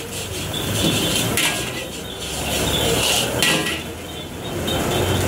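Metal ladle scraping and clanking against a steel wok as fried rice is stir-fried, a few separate strokes over a steady low rumble.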